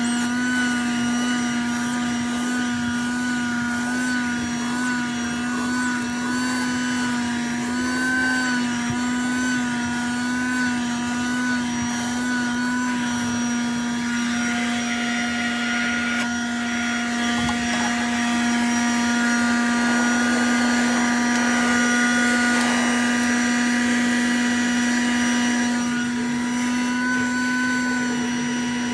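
Sakura 12-volt 120-watt wet-and-dry car vacuum cleaner running while vacuuming dry debris: a steady motor whine whose pitch wobbles slightly in the first half, with an airy rushing hiss growing louder around the middle.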